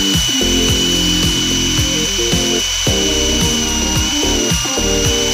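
High steady whine of the small electric DC motor driving the hydraulic pump of a homemade RC excavator, dipping slightly in pitch about four seconds in. Background music with a steady beat plays underneath.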